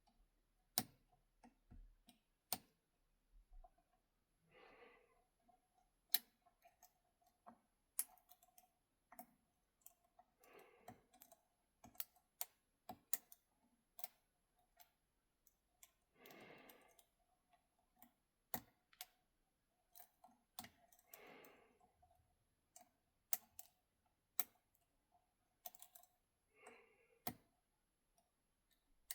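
A lock pick and tension wrench clicking in the keyway of an ASSA Ruko 500 cylinder as its spool pins are picked. The clicks are sharp and irregular, about one or two a second.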